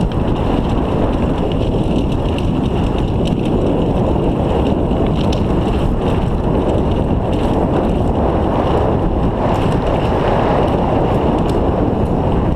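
Wind buffeting the microphone over the rumble and rattle of a mountain bike rolling fast down a stony gravel track, with scattered small clicks from the bike. Steady throughout.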